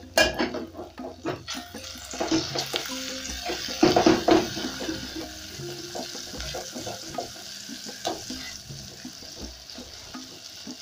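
Onions and garlic-ginger paste sizzling in hot oil in a metal pot, stirred with a silicone spatula that scrapes and knocks against the pot. The loudest knocks come just after the start and again about four seconds in.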